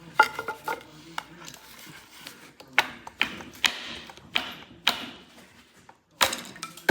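Hand tools clinking and tapping against metal engine parts in a string of sharp knocks, with brief metallic ringing near the start, as pieces of a broken solenoid are picked out with needle-nose pliers.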